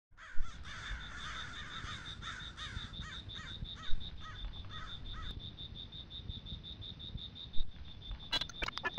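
Crows cawing in a quick series of harsh calls, over a steady high pulsing tone and a low rumble; the cawing stops about five seconds in, and a few sharp clicks come near the end.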